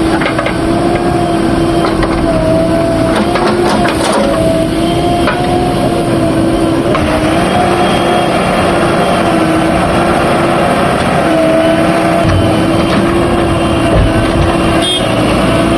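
Diesel engine of a JCB 3DX backhoe loader working under load, with a steady whine that rises and falls slightly in pitch and a few short knocks.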